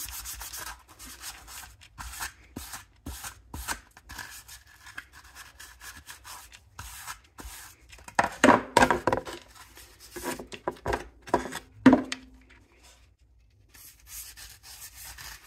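Green Scotch-Brite pad rubbing over a plastic mower headlight housing in short, quick scrubbing strokes, scuffing the shiny plastic dull so paint will stick. Partway through come a few louder knocks and scrapes as the housing is handled.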